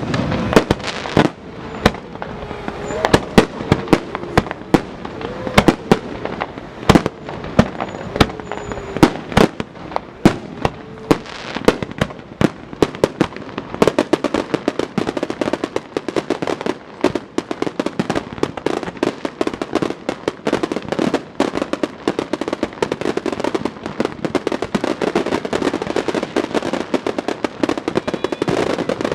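Fireworks going off: many sharp, irregular bangs for the first half, then a dense, rapid run of crackling pops through the rest.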